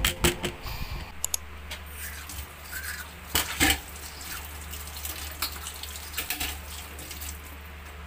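Tap water running into a stainless-steel kitchen sink as hands are washed under it, with scattered knocks and clinks of dishes and utensils, the loudest a little past the middle.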